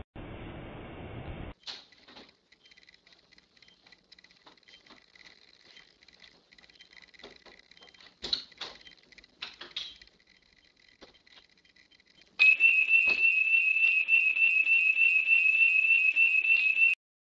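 A loud, high-pitched tone with a fast, regular warble starts about twelve seconds in, holds steady for about four and a half seconds, then cuts off suddenly. Before it come faint scattered clicks and knocks.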